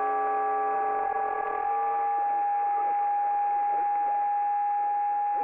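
Shortwave radio receiver tuned to 28.480 MHz in the 10 m amateur band, playing a strange unidentified interference signal: several steady whistling tones over band hiss. Most of the tones drop out within the first two seconds, leaving one strong steady tone.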